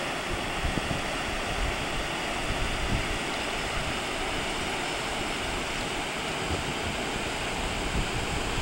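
Trinity River rapids rushing steadily, with gusts of wind now and then buffeting the microphone with low rumbles.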